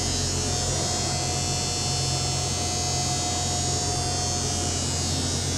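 Steady low electrical mains hum under a broad hiss, even throughout. A faint thin steady tone sits above it and fades out near the end.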